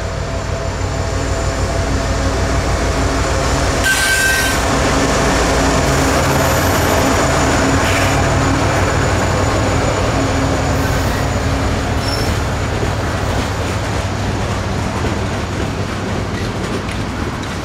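A loaded Norfolk Southern coal train passes at close range: the diesel locomotive's engine runs with a steady low drone, then the loaded coal hopper cars roll by with a continuous rumble of wheels on rail. The sound is loudest as the locomotive passes. There is a brief high squeal about four seconds in, and the engine drone fades out after about twelve seconds, leaving only the rolling cars.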